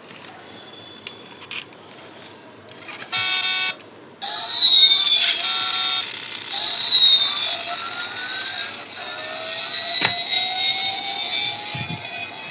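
A short electronic buzz about three seconds in, then several overlapping electronic whine tones that slowly rise in pitch, with a single sharp click about ten seconds in.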